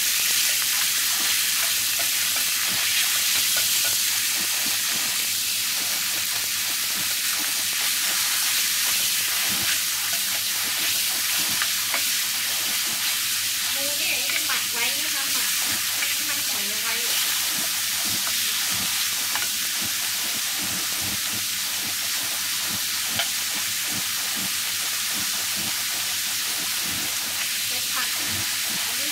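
Sliced pork sizzling steadily in a nonstick frying pan while a wooden spatula stirs it, with frequent short scrapes and taps of the spatula against the pan.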